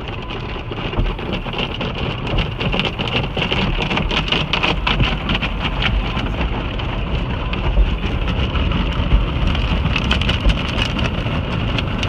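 Automatic car wash heard from inside the car: water and soapy foam drumming on the roof and windows like heavy rain, with the wash's cloth strips and brushes scrubbing over the glass and a low rumble underneath.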